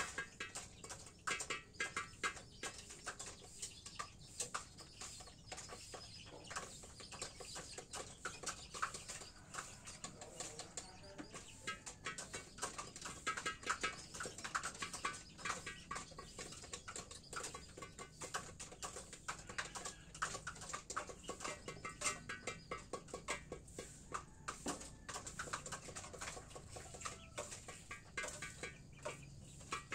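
Chickens in a coop, with soft clucking and chirping and a steady run of small ticks throughout.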